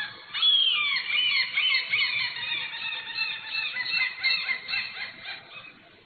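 A gull giving its long call: a drawn-out falling note, then a fast run of short repeated calls, about four or five a second, growing fainter toward the end.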